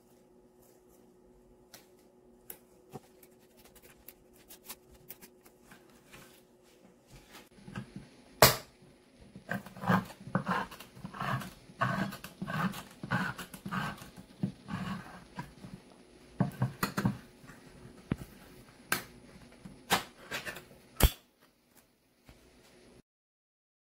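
Hand-held crank can opener on a steel can: a sharp click as it bites in, then the cutting wheel turning around the rim in a run of rhythmic crunching clicks, about two a second, with a few more sharp clicks near the end.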